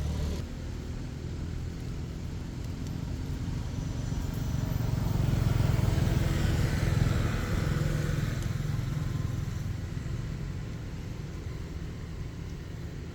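A motor vehicle passing by: a low rumble of engine and tyres that swells to its loudest about six or seven seconds in, then fades away.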